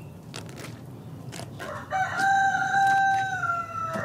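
A rooster crowing once, starting about two seconds in: one long held call that drops slightly in pitch at its end.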